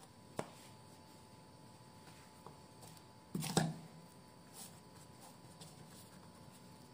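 Hands laying a flattened round of raw pizza dough into a non-stick frying pan and pressing it out: a light click soon after the start and a soft thump about three and a half seconds in.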